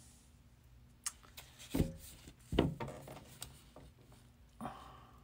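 Tarot cards being handled: scattered soft clicks and rubbing, with two louder knocks near the middle.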